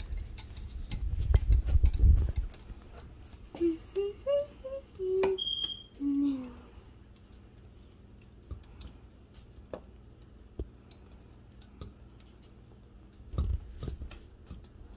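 A spoon stirring a thick sauce in a glass bowl, with light clicks of the spoon against the glass. A low rumble of handling comes in the first two seconds and again briefly near the end, and a few short pitched notes, each higher than the last, sound about four to six seconds in.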